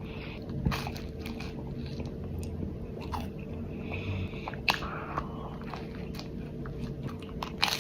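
Close-miked chewing and biting of toast spread with banana and cinnamon, with scattered crunches and wet mouth clicks.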